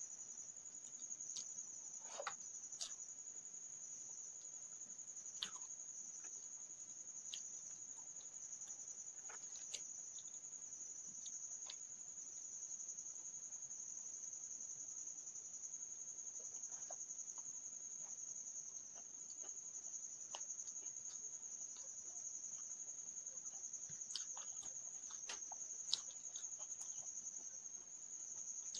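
A cricket's steady high-pitched trill, with scattered short clicks and smacks from eating rice and fried fish by hand.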